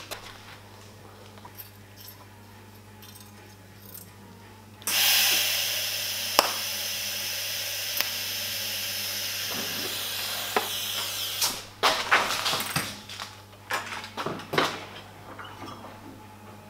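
TIG welding arc on a stainless steel pie-cut pipe joint: a steady, even hiss that starts about five seconds in and lasts about six seconds, laid down as tack welds on the elbow. After the arc stops comes a run of irregular knocks and clatter.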